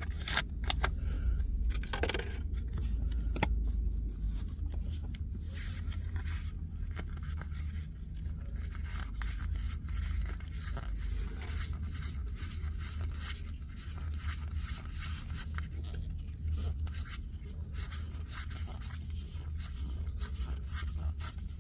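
Trading cards being handled: many small scrapes and flicks as cards slide against one another, over a steady low hum.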